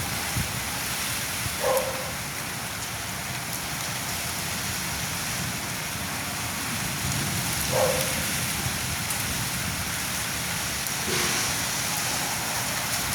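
Heavy rain falling steadily on surfaces, with three short falling-pitch plinks over its steady hiss.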